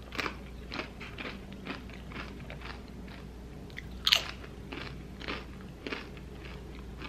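Queso-dipped tortilla chip being chewed close to the microphone: a string of crisp crunches, about two a second, with one louder, sharper crunch about four seconds in.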